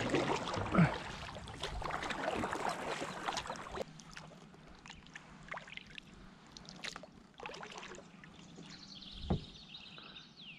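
Kayak paddle strokes swishing and splashing through the water, which cut off suddenly about four seconds in. After that come softer drips and trickles off the paddle blade, and a single dull thump near the end.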